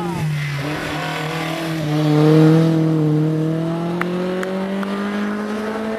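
Hill-climb racing car's engine pulling hard under acceleration, its pitch climbing steadily and loudest about two seconds in. A few short sharp cracks come near the middle.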